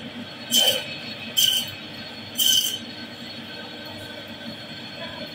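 Electric band saw running with a steady hum, its blade screeching three times in the first three seconds as it cuts through pieces of fish.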